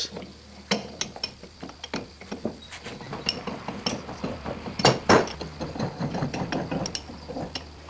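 Steel lead screw of a Wilton bench vise being spun in by its handle, threading into the nut with a run of irregular small metallic clicks and clinks; two sharper clinks about five seconds in.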